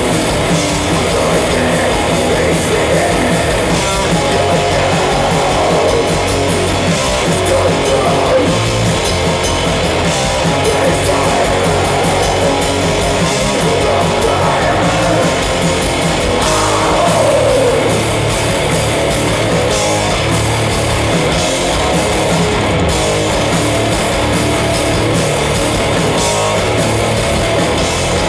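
Heavy metal band playing live and loud, with distorted electric guitars and a drum kit. A pitch slides downward about two-thirds of the way through.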